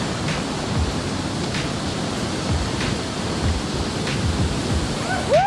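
Whitewater rapids of a rain-swollen river rushing steadily, heard from a kayak in the current, with faint regular splashes of paddle strokes about every second and a half.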